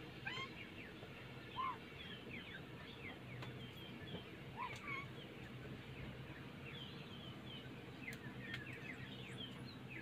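Birds chirping: many short, quick calls, several birds at once, over a faint steady low hum.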